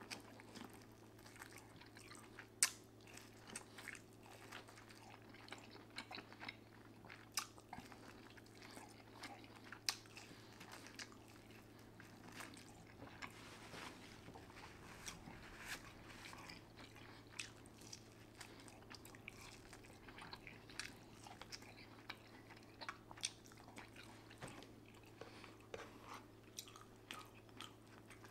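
Quiet close-miked eating of a seafood boil: chewing and biting, with many sharp clicks and crackles scattered throughout and a few louder snaps.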